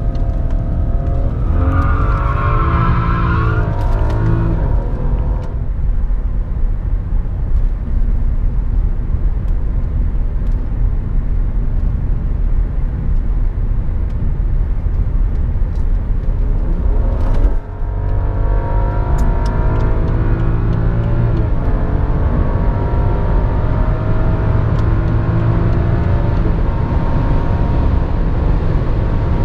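BMW 535i (F10) 3.0-litre turbocharged inline-six running at road speed, heard from inside the cabin with steady tyre and road rumble. The engine note swells and falls a couple of seconds in, and the sound breaks briefly just past halfway.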